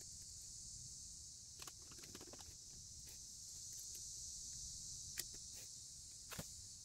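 Faint small clicks and taps of a screwdriver and throttle cable ends being handled at a motorcycle carburetor, a few scattered knocks over a steady high-pitched hiss.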